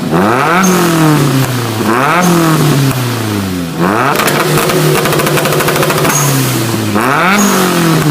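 1989 Nissan 240SX's turbocharged 2.0-litre twin-cam four-cylinder being revved hard: quick blips whose pitch shoots up and slides back down, at the start, about two seconds in and again near the end. Between these, from about four to seven seconds in, the revs are held high for about three seconds with a rapid stutter.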